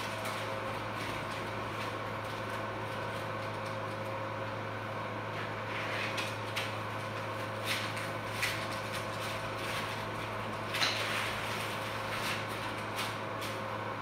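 Steady hum of operating-room equipment, with several steady tones held at fixed pitch. A few short, soft clicks or rustles come from about six seconds in, the clearest just before eleven seconds.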